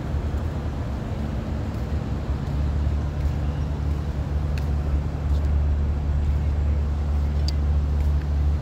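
Steady low rumble of outdoor city background noise with a low hum under it, and a couple of faint ticks.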